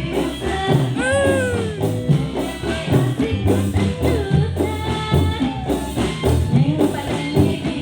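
Band music played loud through a PA sound system during a rehearsal, with a steady beat and a melodic line that slides in pitch, arching up and down about a second in.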